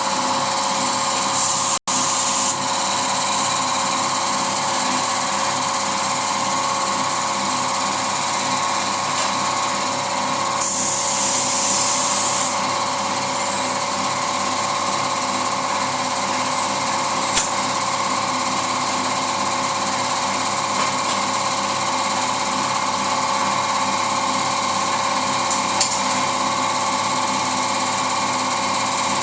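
Steady motor drone of the spray-painting air supply, which breaks off for an instant near 2 s. Two bursts of high spray-gun hiss come through over it: a short one near the start and a longer one of about two seconds a little before the middle.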